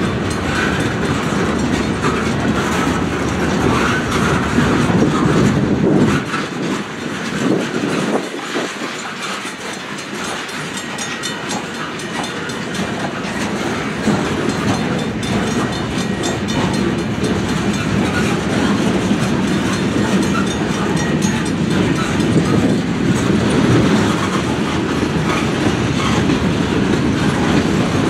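Freight train's cars (gondolas, flatcars, covered hoppers) rolling past at trackside: a steady rumble with wheels clacking over rail joints. The rumble eases for several seconds about six seconds in, then builds again.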